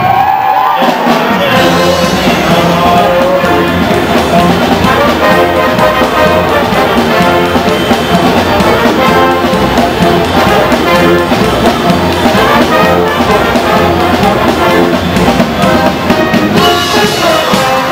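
Pep band of trumpets, trombones, saxophones and sousaphone with drum kit playing an up-tempo tune. After a brief break about a second in, the full band comes back in.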